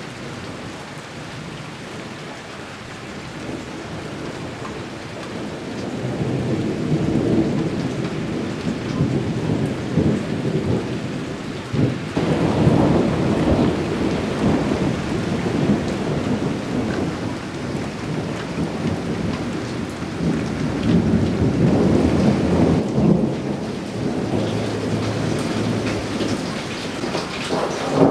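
Thunderstorm: rain falling steadily while thunder rumbles again and again. The rumbling grows louder after about six seconds, with a sudden loud rumble about twelve seconds in.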